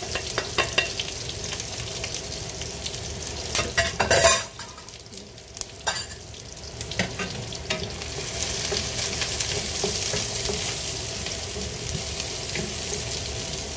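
Noodles sizzling in a frying pan over a gas burner, stirred with a wooden spatula that scrapes and knocks against the pan over the first few seconds. A louder clatter comes about four seconds in, then the pan sizzles steadily.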